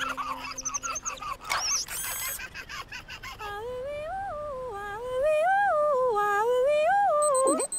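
A woman's voice humming a wordless, lilting tune that rises and falls smoothly and ends with a downward slide. It is preceded by a brief high shimmering chime.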